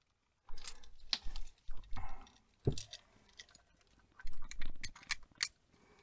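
Small irregular clicks, taps and scrapes of a Phillips screwdriver tightening a wire under a light switch's terminal screw, with the switch and its wires being handled; a few sharper clicks near the end.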